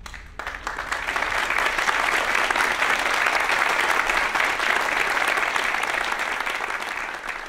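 Audience applauding: the clapping swells within the first second, holds steady, and starts to fade near the end.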